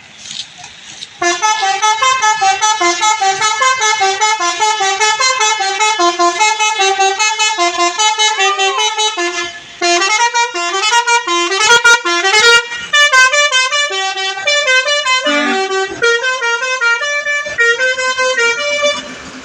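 Bus telolet horn (Basuri multi-tone melody horn) playing a tune of quick stepping notes. It starts about a second in, breaks off briefly near the middle, then plays a second, livelier tune with some sliding notes.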